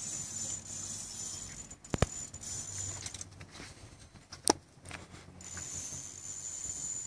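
Fishing reel and match rod being worked while a hooked barbel is played: light metallic clicks and rattles, with two sharper clicks about two and four and a half seconds in, over a steady high hiss.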